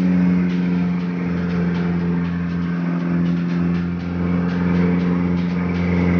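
Boat engine running steadily at cruising speed, a constant drone, over the hiss of wind and water rushing past the hull.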